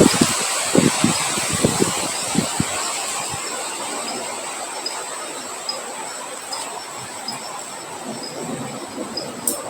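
Rain and wind noise fading down, with low thuds in the first few seconds, giving way to insects: a steady high trill and evenly repeated short chirps.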